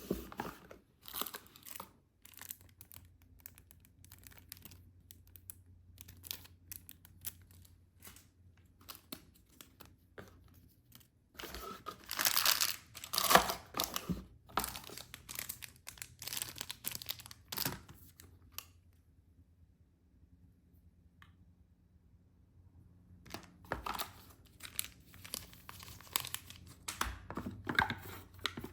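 Packaging being torn open and crinkled by hand, with irregular rustles and crackles. The loudest bursts come in the middle, then a few seconds' lull before the handling resumes.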